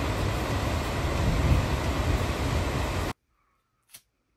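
Steady roar of whitewater pouring over a waterfall, loud with a deep rumble underneath. It cuts off abruptly about three seconds in, leaving near silence with one faint click.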